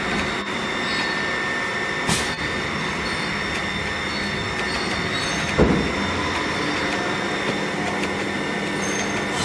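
VMC650 vertical machining center milling a metal block with an end mill: a steady high-pitched cutter whine over the running noise of the machine. There is a brief click about two seconds in and a thump a little past halfway.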